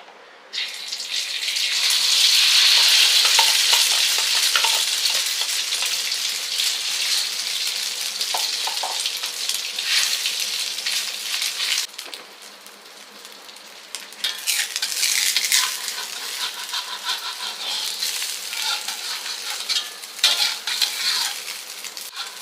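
Food sizzling as it fries in a pan, with scraping as it is stirred. The sizzle starts about half a second in, drops away for a couple of seconds around the middle, then comes back.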